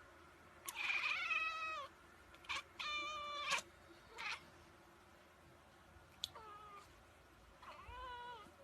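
Domestic cat meowing four times, with two loud drawn-out meows followed by two softer, shorter ones.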